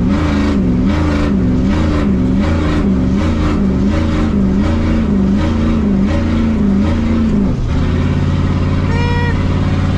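Ford 7.3 IDI V8 diesel engine running under way, heard from inside the truck's cab. A low tone wobbles up and down about once a second, then holds steady from about three-quarters of the way in. A short higher-pitched tone sounds about nine seconds in.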